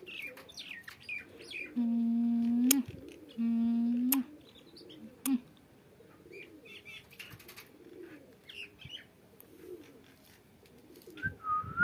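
Pet rose-ringed (Indian ringneck) parakeet chirping and squeaking in short notes, with two longer steady low hums about two and three and a half seconds in and a rising-falling whistle near the end.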